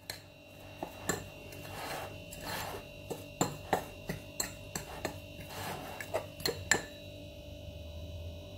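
A metal fork stirring and scraping through semolina and flour in a ceramic bowl, with irregular sharp clinks as it strikes the bowl's side, under a steady faint hum. The clinking stops about a second before the end.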